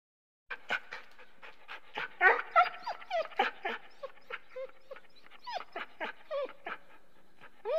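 A dog whining and yipping in a quick series of short calls that bend up and down in pitch, starting about half a second in.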